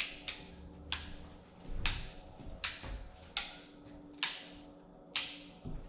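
A series of about eight sharp clicks or knocks, irregularly spaced roughly a second apart, over a faint low hum.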